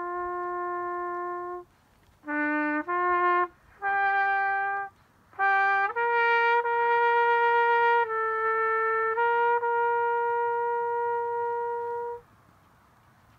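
A solo trumpet-like brass instrument playing a slow melody: a held note, a gap, a few short notes, then longer notes ending on a long held note about twelve seconds in.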